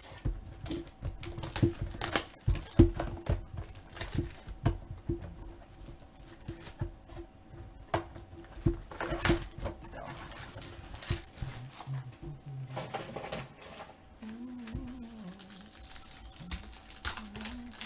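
A cardboard trading-card box being opened and handled, with many scrapes, taps and sharp clicks. Near the end a foil card pack crinkles as it is torn open.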